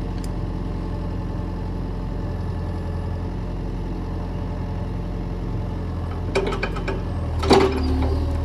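Excavator engine running steadily. Late on, a quick series of clanks and one louder knock as the machine works, after which the engine's low note grows stronger under load.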